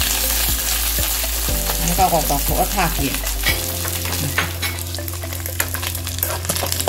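Chunks of food sizzling as they fry in hot oil in a kadai, with the scrape and clicks of a wire skimmer stirring them against the pan.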